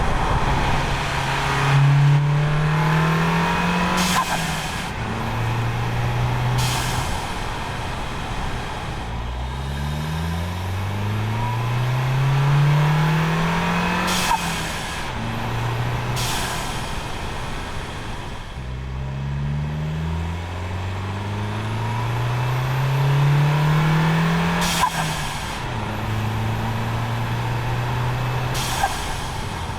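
Volkswagen MK7 Golf's turbocharged engine pulling hard, its note rising through each gear and dropping at each shift. Several times, at lift-off or shift, a brief turbo flutter sounds as boost vents through the atmospheric diverter valve spacer.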